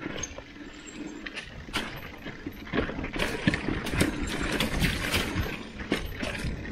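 Mountain bike rattling over a rough dirt trail: a steady rolling rush broken by irregular knocks and clicks from the bike jolting over the ground. The knocks get busier and louder about three seconds in.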